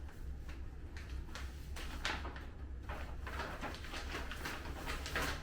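Soft rustling and swishing of packaging and clothing being handled during an unboxing: a few separate brushes of sound over a low steady hum.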